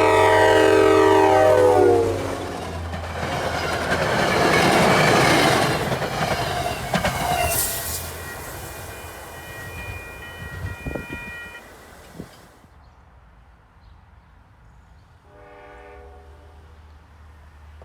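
Train passing at speed: the locomotive's multi-note air horn blows and drops in pitch as it goes by, then the rush and rumble of the train with wheels on rail. A thin high steady ringing follows for a few seconds as it fades, and a shorter, fainter horn blast sounds near the end.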